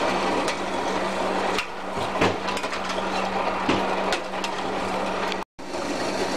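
Sugar syrup boiling hard in a steel pot as a dense, even bubbling noise, with a few light clinks of a steel spoon against the pot as it is stirred. A low steady hum runs underneath.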